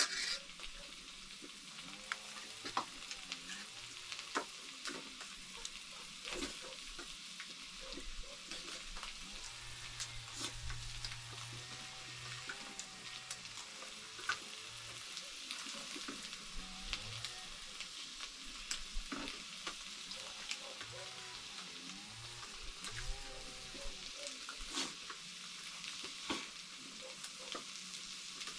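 Food sizzling as it fries in a pan, with steady hissing and scattered sharp clicks from stirring.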